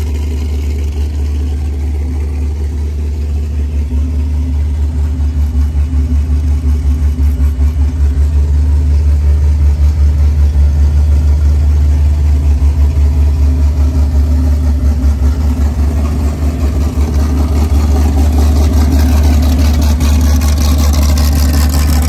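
Supercharged 440-cubic-inch V8 of a Sand Cars Unlimited R4 sand car idling, a deep steady idle with a fast, uneven pulse. It grows louder a few seconds in.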